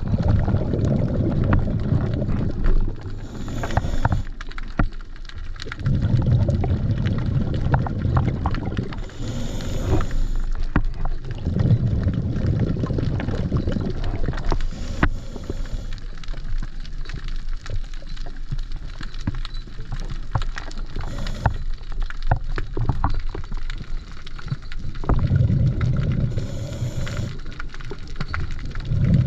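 Scuba diver breathing through a regulator underwater: a low rumbling burst of exhaled bubbles every few seconds, with a brief hiss of inhalation between them, over a constant crackle of small clicks.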